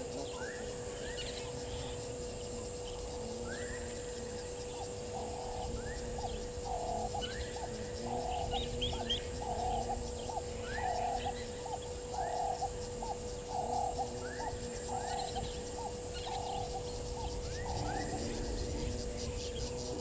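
Several wild birds calling: short rising chirps about once a second, and a repeated low warbling phrase that runs for most of the stretch. Underneath is a steady high insect buzz.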